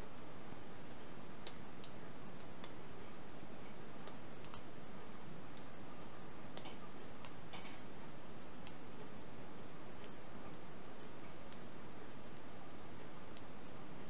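Faint, irregular metallic clicks of a hook pick working the pin stack of an ABUS 82/90 padlock held under a tension wrench, a dozen or more scattered ticks over a steady hiss with a faint high whine.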